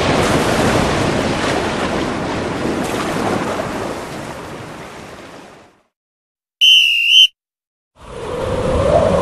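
Stock sound effects played in a row: a rushing noise like surf that fades out over about six seconds, a short warbling whistle tone, then a rumbling noise with a steady hum that begins near the end.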